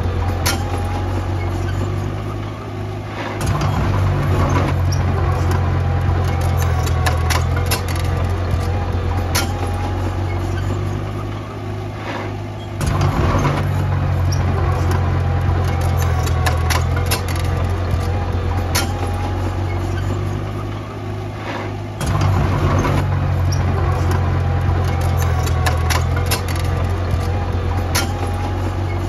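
Diesel engine of heavy earthmoving machinery running steadily, rising sharply in level three times, about every nine or ten seconds, and easing off in between. Scattered metallic clicks and clanks run over it.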